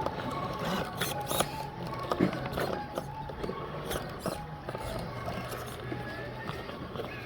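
Small electric RC rock crawler's motor and gears whirring, with irregular clicks and scrapes of its tyres and chassis on rock.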